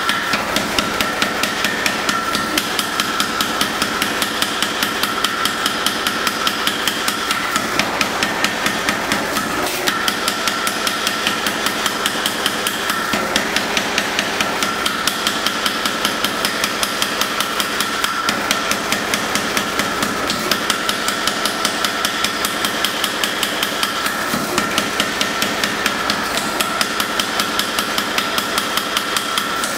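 Steady, rapid hammer blows, evenly spaced at several a second, on a white-hot steel billet being forge welded.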